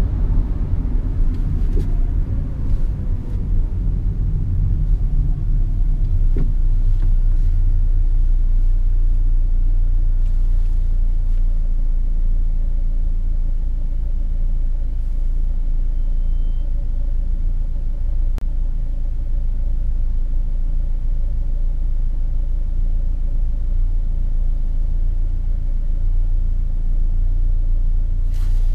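Peugeot 206 on the move: a steady low rumble of engine and road noise, fuller in the first few seconds, with a faint steady whine joining later.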